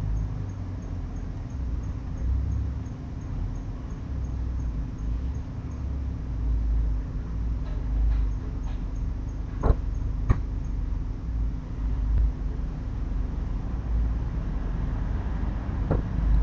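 Steady low background rumble with a constant low hum, broken about ten seconds in by two sharp knocks about half a second apart, with another knock near the end.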